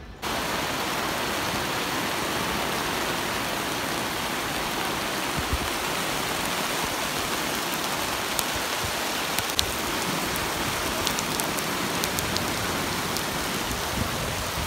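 Heavy rain falling on a paved street, a steady, dense hiss with scattered sharp ticks of drops striking close by. It starts abruptly about a quarter second in.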